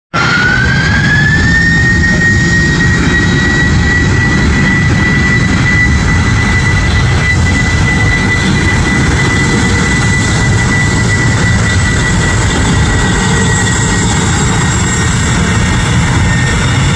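Boeing 747-400 freighter's four jet engines at takeoff power during the takeoff roll: a loud, steady low roar with a high fan whine that rises in pitch over the first second or two, then holds level.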